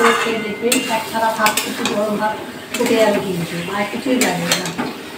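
A spatula stirring and scraping brinjal pieces through thick masala paste in a metal kadai. It makes repeated scrapes with a squeaky, bending pitch and a few sharp knocks against the pan, over a light sizzle.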